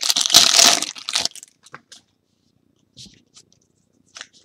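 Foil trading-card pack wrapper torn open and crinkled for about the first second, followed by a few short clicks and then faint ticks as the cards inside are handled.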